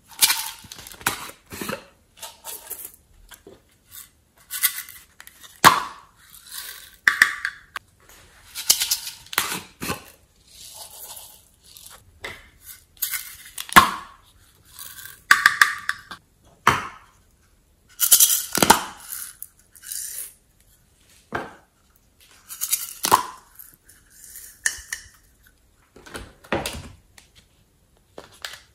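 Small plastic containers of glitter and sequins handled over a glass dish. Lids snap and pop, and the pots are tapped and shaken out, giving a string of separate clicks and knocks and hissy rattling pours, with short gaps between them.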